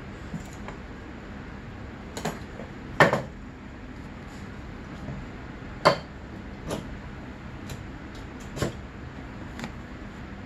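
A handful of short, sharp metal knocks and clicks as the cylinder of a 1995 Arctic Cat ZR 700 two-stroke snowmobile engine is worked down over the piston and rings onto the crankcase studs. The loudest knock comes about three seconds in and another just before six seconds. A steady low hum runs underneath.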